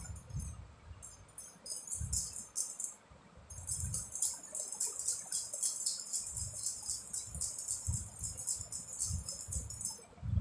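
Bangles on the wrists jingling and clinking as hands roll and press a ball of semolina dough, with soft low thuds of the hands working the dough. The jingling thins out briefly about three seconds in, then runs on densely.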